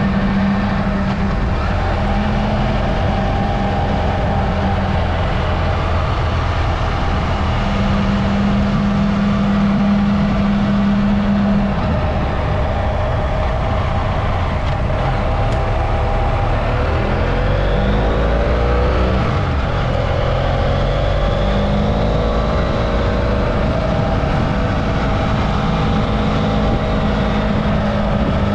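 Adventure motorcycle engine running under way, with steady wind rush. About two-thirds of the way through, the engine note falls and then climbs again as the throttle is eased off and opened back up.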